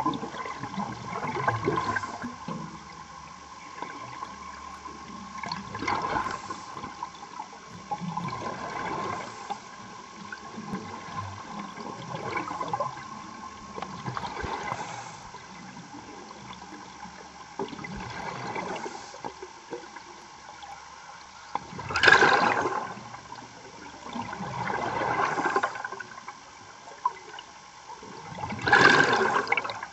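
Underwater bubbling and rushing from a diver's scuba regulator, with a surge of exhaled bubbles about every three to four seconds and a faint steady tone underneath.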